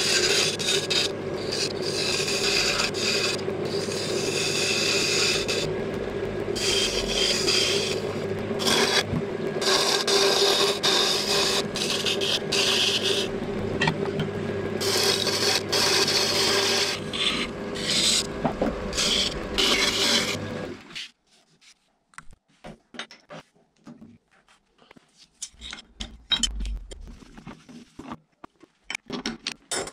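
Record Power wood lathe running with its steady motor hum while a turning tool cuts into a spinning cherry-wood goblet blank in repeated scraping passes with short breaks. About two-thirds of the way through, the lathe stops suddenly, leaving only faint knocks and clicks from handling the workpiece.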